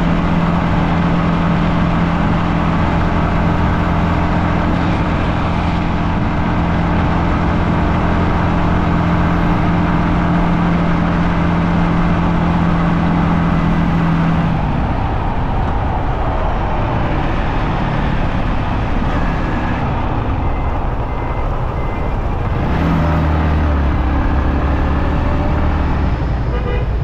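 Yamaha XSR155 single-cylinder motorcycle engine cruising on a steady note under heavy wind noise. The steady engine note drops away about halfway through, and a lower one comes back shortly before the end.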